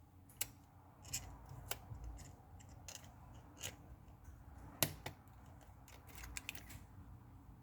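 Small, sharp clicks and taps of tools and parts on a phone being put back together, scattered irregularly, with one louder click about five seconds in.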